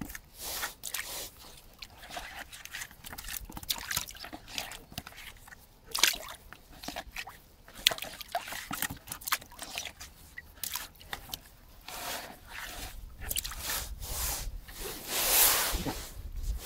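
A freshly caught bream being handled in shallow water at the bank: irregular small splashes and drips. A louder, longer slosh comes near the end, as the fish goes into a plastic bucket.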